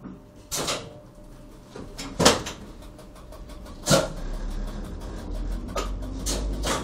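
Electric metre-gauge railcar (CJ ABe 4/4) moving off from a stop, heard from its driving cab: several sharp clunks, then from about four seconds in a low steady hum of the running gear and traction motors as it gathers way.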